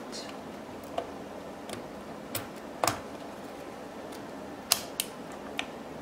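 Corsair DDR4 memory module being pushed into a motherboard DIMM slot, the plastic retention latches snapping shut: a handful of sharp clicks, the loudest a double click near the middle and another a little later.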